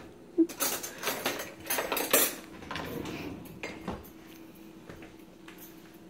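Metal cutlery clattering in a kitchen drawer as a hand rummages through it: a run of quick rattles in the first two and a half seconds, then a few lighter clinks.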